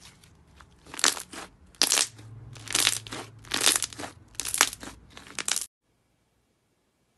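Thick, dough-like slime squeezed and kneaded by hand, giving loud crackling pops about once a second as its air pockets are pressed. The sound stops abruptly near the end.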